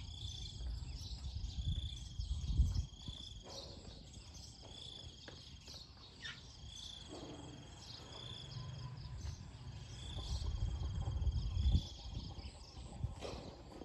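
Insects buzzing and trilling steadily in the grass, with a high chirp repeating every second or two. A low rumble swells twice, about three seconds in and near the end.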